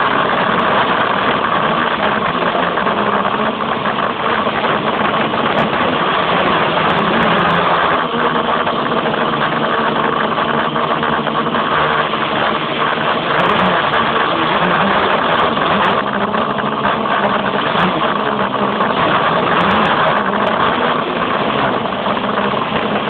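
Quadcopter's electric motors and propellers running steadily, a dense rushing buzz with faint wavering motor tones, heard through the narrow-band microphone of an old HTC Dream phone carried on the craft.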